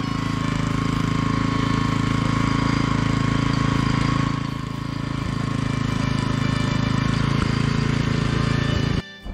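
A motor running steadily at a loud level, cutting off abruptly near the end.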